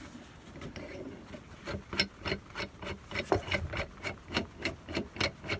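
LES 80 mm bench vise being wound open by its lead screw: a light metal rub at first, then steady ticking about three times a second as the screw is turned. With the retaining pin out, nothing stops the jaw, so the screw winds right out of its nut.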